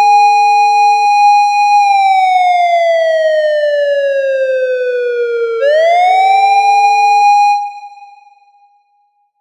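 Japanese police patrol car siren wailing: the tone holds high, slides slowly down over about four seconds, sweeps back up and holds, then dies away near the end.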